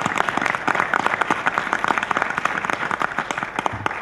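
Audience and panel applauding, many hands clapping at once, thinning out near the end.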